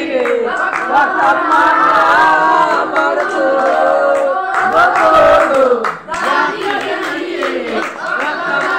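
A group of young voices singing together in unison, holding long notes, with some hand clapping.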